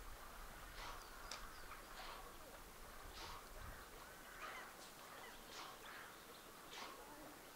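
Faint, evenly spaced splashes of water about once a second, from a swimmer's strokes in open water.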